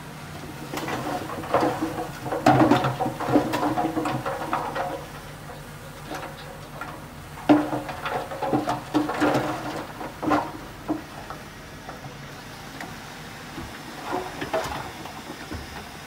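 Dump truck engine running with a steady low hum while its bed tips, and soil and rocks clatter and rumble out of the back in bursts: a couple of seconds in, again from about seven and a half seconds in, and more faintly near the end.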